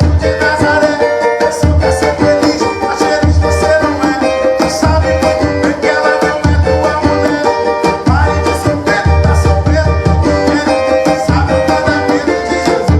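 Pentecostal 'corinho de fogo' music played on cavaquinho and tantan: quick strummed cavaquinho chords over deep, evenly repeating tantan strokes.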